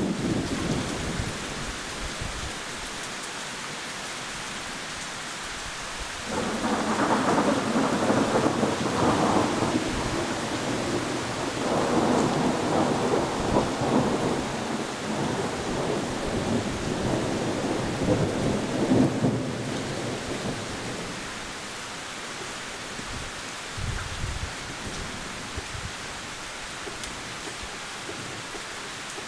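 Heavy rain falling steadily, with a long roll of thunder that swells up about six seconds in, rumbles for over ten seconds, then fades back under the rain.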